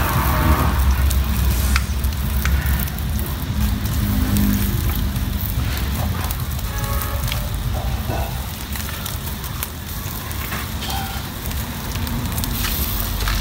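Open wood fire crackling, with scattered sharp pops over a steady low rumble.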